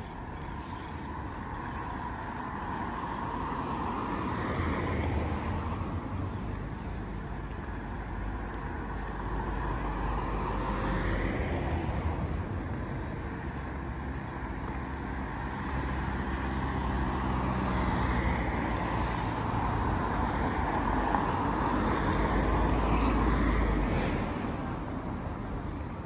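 Road traffic: cars passing one after another, each swelling and fading with a low engine and tyre rumble, the loudest a little before the end.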